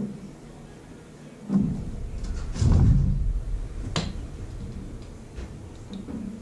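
Wooden platform boards being handled and fitted together: a thump about a second and a half in, heavier low bumping around three seconds, a sharp knock about four seconds in, then a few light knocks.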